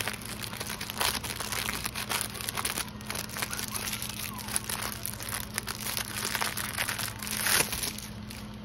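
Clear plastic wrapping on a diamond painting kit crinkling and rustling as it is handled and opened, with louder crackles about a second in and again near the end.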